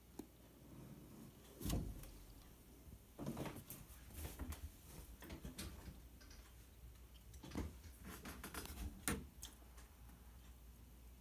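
Scattered clicks and knocks from a phone being handled and carried, the loudest about two seconds in.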